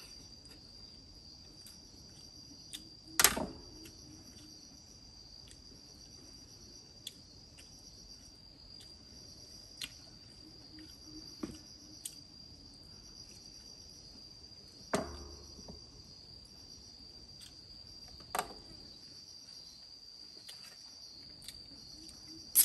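Insects trilling steadily in a high, continuous chorus, broken by a few sharp knocks. The loudest knock comes about three seconds in, and two more come later.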